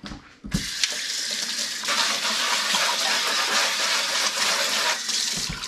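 Kitchen faucet running, its stream splashing on a metal rasp grater and into a stainless steel sink. The water comes on about half a second in, grows louder about two seconds in, and is shut off near the end.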